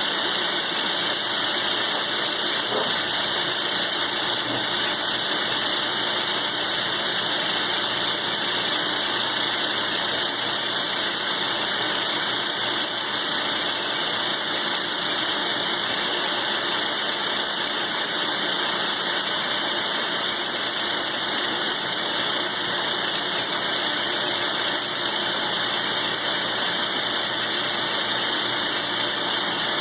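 Milling machine taking a slow, steady roughing cut in thick steel with a roughing end mill: a continuous, unchanging high-pitched cutting noise over the running machine.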